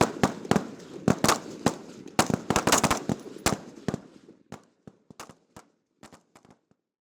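Rifle fire from many rifles on a firing line, sharp shots coming close together and overlapping, then thinning out and growing fainter after about four seconds until it dies away near the end.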